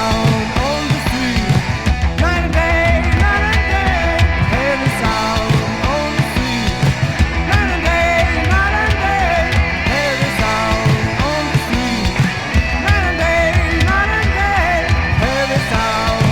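Early-1980s heavy metal band playing at full volume: distorted electric guitars, bass and drums, with a lead line above them that bends up and down in pitch.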